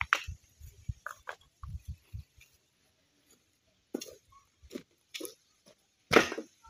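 A few short knocks and scrapes of a stone being handled, then footsteps on bare earth, one step about every half second, with a louder thump near the end.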